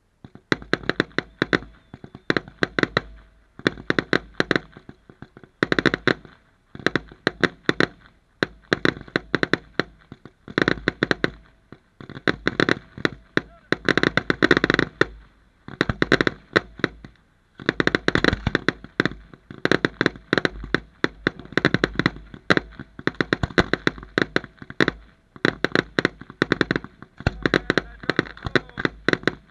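Aerial fireworks display: shells bursting in quick volleys of sharp bangs and crackles, a cluster about every second, with barely a pause throughout.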